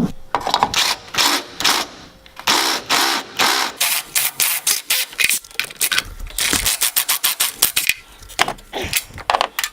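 A tool boring out a hole so the rear shock's damping-adjuster extender will pass through: rapid, irregular bursts of grinding and rattling, stopping and starting many times.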